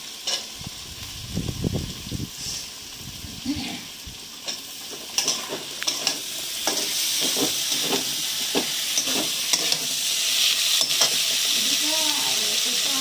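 Brinjal pieces going into a metal kadai of frying onion, tomato and dried fish, stirred with a metal spatula that scrapes and taps on the pan. The sizzling of the oil grows louder from about halfway through.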